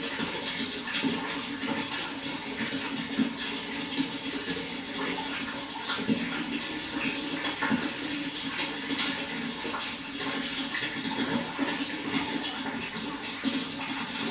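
Water flowing steadily, an even running sound with small irregular splashes throughout.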